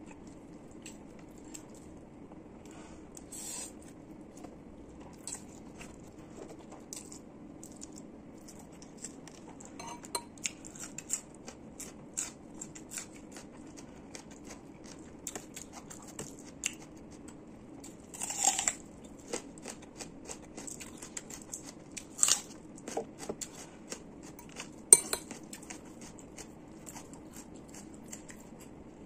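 Metal fork clinking and scraping against a ceramic bowl while noodles are eaten, in many short irregular clicks, with a few louder clinks in the second half.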